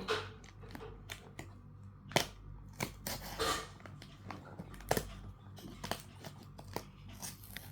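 Toy packaging being handled and torn open: scattered crinkles, sharp clicks and short tearing noises, loudest about two, three and five seconds in.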